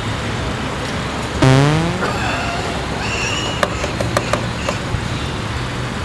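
A buzzy synthesized fart sound effect from a KORG iMS-20, rising in pitch for about half a second, over a steady background rumble. A few sharp clicks follow a couple of seconds later.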